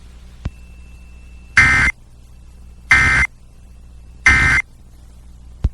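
Emergency Alert System end-of-message code: three short, harsh digital data bursts about 1.3 seconds apart. This is the two-tone 'NNNN' data signal that closes an alert broadcast. A faint thin tone and a click come before the first burst, and another click comes near the end.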